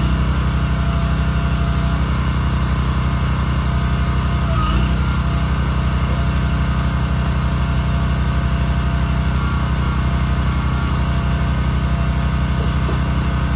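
Small gas engine of a Wolfe Ridge firewood splitter running steadily while the splitter is worked.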